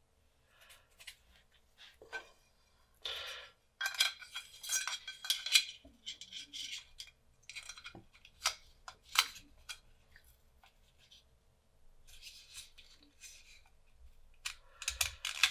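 A USB-C laptop dock's circuit board being slid and pressed back into its case by hand: irregular scraping and clicking of board against housing, the loudest about four to six seconds in and again near the end.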